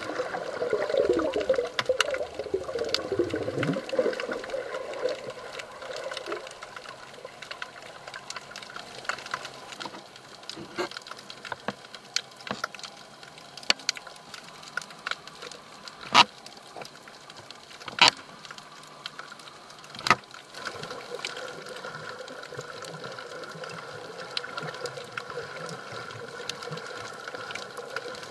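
Underwater sound picked up by a camera held below the surface while snorkelling. It opens with a muffled watery rush and gurgles for the first few seconds, then settles to a low hiss sprinkled with sharp clicks and crackles, a few of them loud.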